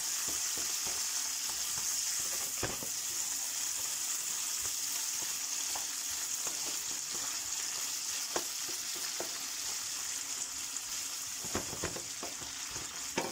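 Olive oil sizzling steadily in a frying pan of garlic, capers, anchovies and olives, stirred with a wooden spoon that knocks against the pan a few times.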